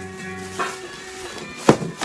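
Background music with held tones and repeated note attacks. One sharp knock comes near the end.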